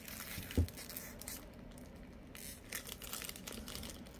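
Thick clear plastic sleeve crinkling and crackling as it is pulled and peeled off a card box, with one dull thump about half a second in.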